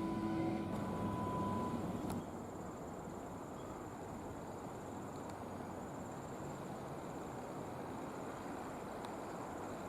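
Steady outdoor background hiss with a thin, high, continuous chirring of insects. For the first two seconds a humming with steady tones sits over it and cuts off abruptly about two seconds in.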